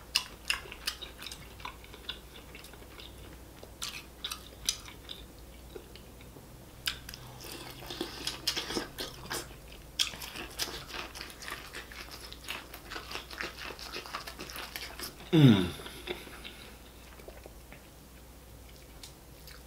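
Close mouth sounds of eating: biting and chewing corn on the cob, with many sharp wet clicks and crunches. About fifteen seconds in, a short loud sound slides steeply down in pitch.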